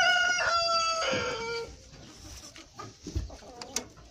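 A rooster crowing, the long call already under way and trailing off with a drop in pitch about a second and a half in. After it come quieter scattered knocks, with a low thump about three seconds in.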